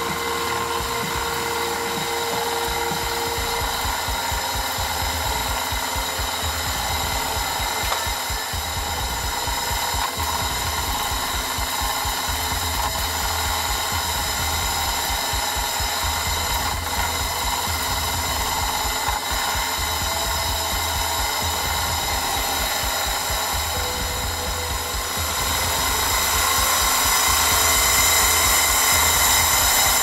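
Model vertical reversing steam engine, built to Elmer Verburg's design #38, running on steam from a small gas-fired vertical boiler: a steady mechanical running sound with a rapid low pulsing. It gets louder near the end.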